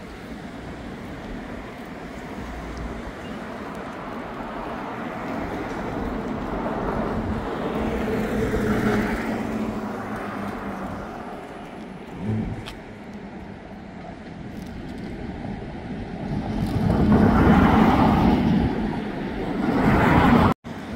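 Road traffic: cars passing by on a city street, growing louder as each goes past, with the loudest pass late on.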